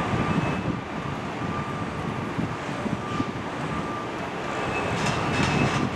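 Wind gusting on the microphone, a low fluttering rumble over a steady hiss of outdoor background noise.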